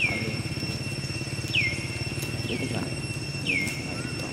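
Short, high squeaks, each dropping sharply in pitch, repeated four times at uneven intervals over a steady insect drone and a low pulsing hum.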